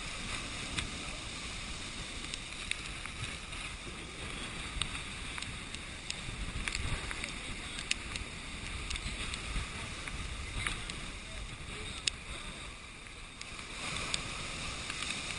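Heavy storm surf breaking and churning against a rock sea wall, a steady rumble and wash of water with wind buffeting the microphone. Scattered sharp ticks stand out over it.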